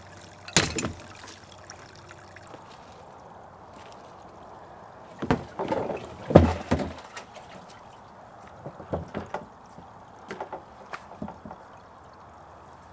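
Irregular thumps and knocks with some rustling as a person moves about on dry leaf litter and twigs. There is one sharp thump about half a second in, a louder cluster of knocks around the middle, and lighter ones near the end.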